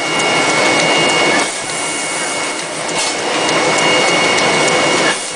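Paper-converting machinery running in a tissue factory: a dense steady whirr with a high, constant whine. It swells louder during the first second and a half and again from about three seconds in until near the end.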